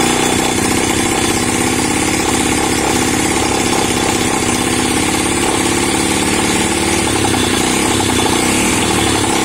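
Engine of a log-hauling winch running steadily under test, with a fast, even pulsing beat.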